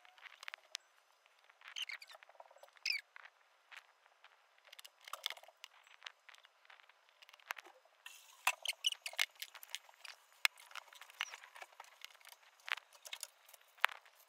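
Faint scattered clicks, taps and short squeaky chirps from hands working play-doh and handling its plastic tubs. The sounds are thin and high, with no low end, and grow busier about halfway through.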